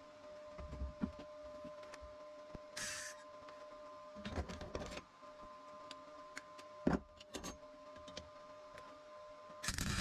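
Knocks and clatter of steel and tools being handled at a workbench, with a brief hiss about three seconds in, over a steady hum. Near the end a short, loud burst of MIG welding crackle as an arc is struck on steel box section.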